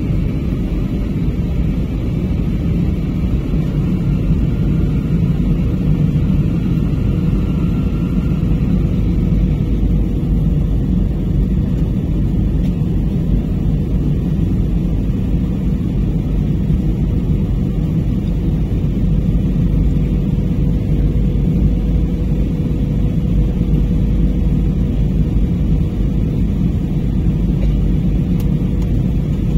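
Passenger airliner in flight, heard from inside the cabin: a loud, steady low rumble of engine and airflow noise with a faint steady hum above it.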